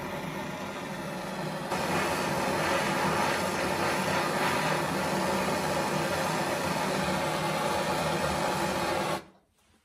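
Handheld gas torch flame running with a steady roaring hiss as it heats a small metal watch-case ring to a red glow. It grows louder about two seconds in and cuts off abruptly near the end when the torch is shut off.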